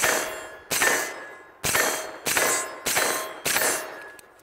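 Faxon Bantam 9mm pistol-caliber carbine fired semi-automatically: six shots at a steady pace, a little under a second apart, each followed by a ringing clang of a steel target being hit.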